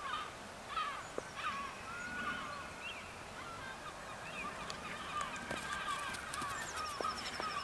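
Many birds calling, short honking calls repeating and overlapping throughout.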